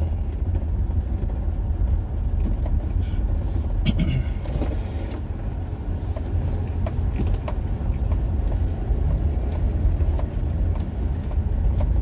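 A car driving slowly along a street: a steady low engine and road rumble, with a short sharper noise about four seconds in.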